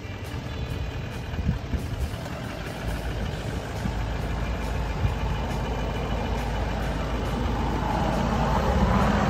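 A motor vehicle's engine running steadily with a low rumble, growing louder over the last couple of seconds.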